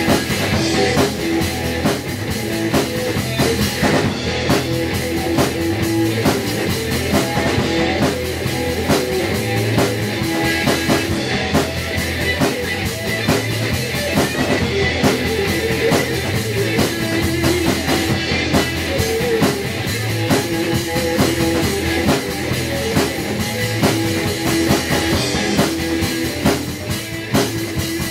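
Rock song recording with electric guitar, played together with a large acoustic drum kit with Sabian cymbals keeping a steady driving beat.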